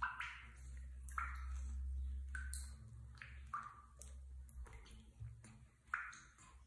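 Small splashes and drips of water in a plastic tub as a baby monkey paddles and swims in it, a string of short wet sounds about one or two a second.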